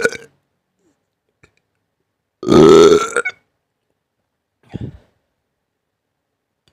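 A person burping three times: a short burp right at the start, a loud, long one of about a second around two and a half seconds in, and a short, softer one near five seconds.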